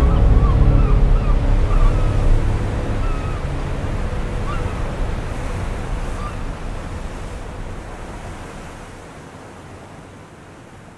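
Ocean surf washing in a steady rush that fades out gradually, with a few faint short high calls in the first few seconds.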